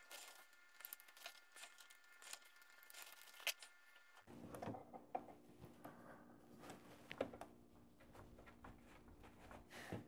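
Near silence with faint small clicks and scrapes of a flat screwdriver and wires being worked into a car amplifier's plug-in terminal block. There are sharper single clicks about three and a half and about seven seconds in, and the low background hum changes about four seconds in.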